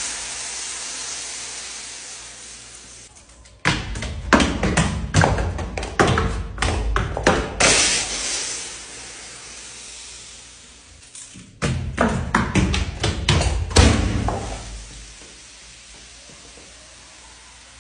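Full plastic soda bottles tumbling down stone stairs: a run of knocks and thuds as each bounces from step to step, ending in a louder impact as the bottle bursts on the landing, followed by a fading spray. This happens twice, once about four seconds in and again near twelve seconds. It opens on the fading tail of an earlier burst.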